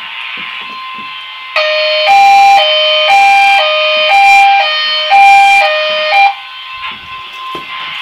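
Fire alarm speaker of an Edwards (EST) voice evacuation system sounding a hi-lo alert tone. It switches between a lower and a higher pitch every half second, starting about one and a half seconds in and stopping after about five high-low cycles.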